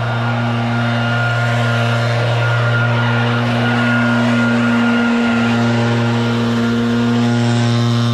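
Backpack leaf blower running steadily, clearing loose mulch off an asphalt driveway. Its engine note dips briefly about five seconds in.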